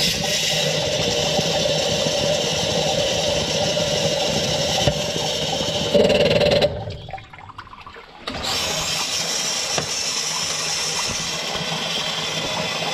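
Sump pump motor running and pumping water out of the pit as its float switch is lifted by hand to test it. It cuts out about seven seconds in and starts again under two seconds later.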